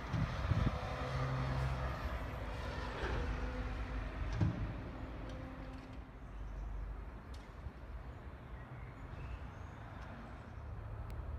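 Distant electric double-deck regional train pulling away, a low rumble with a faint electric hum that fades after the first few seconds. Wind buffets the microphone, with a brief thump about four and a half seconds in.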